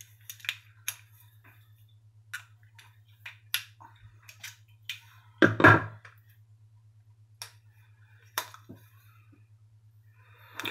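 Small scattered clicks and taps of fingers and a fingernail working at a stiff Arthur Wright & Son sheepsfoot slip-joint pocket knife as its blade is prised open. Its backspring is very tight, the kind called a 'nail breaker'. One brief louder noise comes about halfway through.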